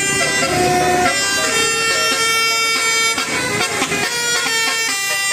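Bus telolet musical air horn (Basuri type) playing a tune of held notes, stepping to a new pitch every second or so.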